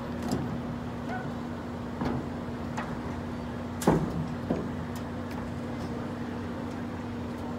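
Hushed stadium ambience: a steady low hum with a few scattered sharp clicks or knocks, the loudest about four seconds in.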